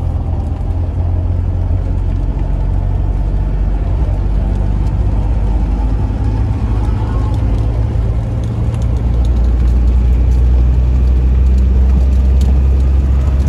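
Mahindra Thar CRDe's 2.5-litre four-cylinder diesel engine pulling hard under acceleration, heard from inside the cabin as a steady low drone. A short dip comes about two-thirds of the way through, and then it runs louder.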